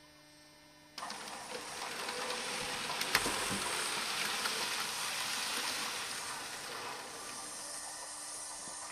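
HO-scale model steam locomotive and its passenger coaches running along the track: a steady whirring, rolling noise that starts suddenly about a second in, is loudest around three seconds in with one sharp click, then eases off a little. A faint mains hum is heard before the train noise starts.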